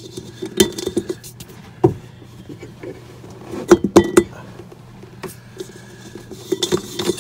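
A plastic drain strainer and fingers clicking and clinking against a stainless steel sink as the strainer is pressed and worked in the drain. The sharpest clicks come in a quick cluster about four seconds in, with more near the end.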